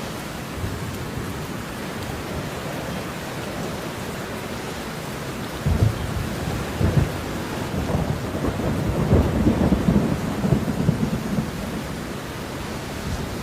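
Steady falling rain, with a roll of thunder breaking in about six seconds in: a low rumble with sharp crackles that swells for several seconds and then eases.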